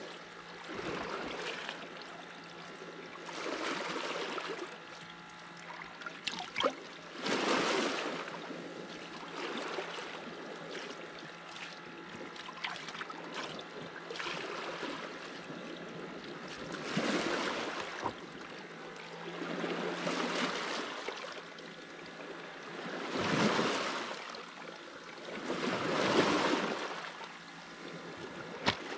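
Sea waves washing in on the shore, the rushing noise swelling and fading every few seconds.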